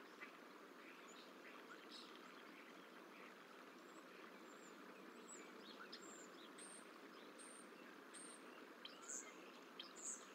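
Faint outdoor ambience: a steady low hiss with scattered faint, short, high chirps of small birds, a run of brief high notes about a second apart in the second half and the two loudest near the end.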